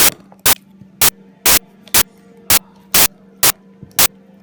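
Sharp static-like crackling bursts, evenly spaced about twice a second, over a steady low electrical hum.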